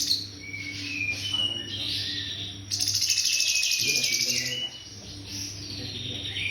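Cungkok songbird singing. Short clear whistled notes step up and down, and a fast, high buzzing trill runs from about three seconds in to nearly five seconds in, over a steady low hum.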